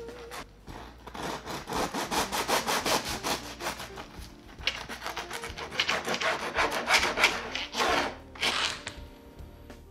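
Bread knife sawing through the crisp crust of a round whole wheat loaf: quick back-and-forth rasping strokes, thinning out near the end.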